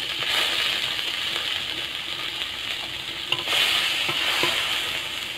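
Whole shrimp sizzling in hot oil in a wok, with a metal spatula scraping and pushing them around. The sizzle swells again about three and a half seconds in.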